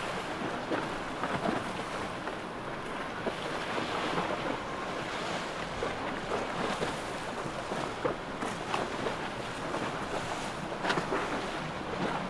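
Astondoa Century 100 motor yacht running at speed: a steady rush of water from its bow wave and wake, with a few sharper splashes, and wind buffeting the microphone.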